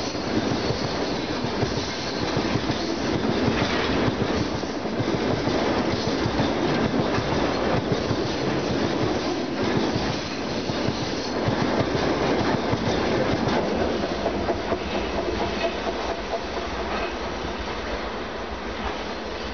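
Freight train of railway tank cars rolling past close by, its wheels clattering over the rail joints. The sound fades near the end as the last car goes by.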